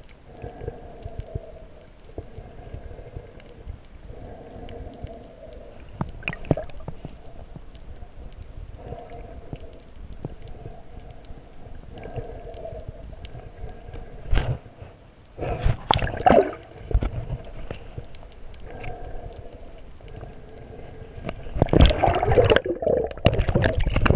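Muffled underwater sound picked up by an action camera in its waterproof housing while snorkeling: a faint hum that comes and goes every few seconds, a few clicks, and loud splashing and bubbling surges about two-thirds of the way through and again near the end.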